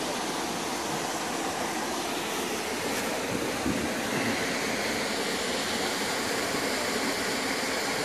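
Steady rush of a small waterfall pouring into its plunge pool, an even hiss of falling water.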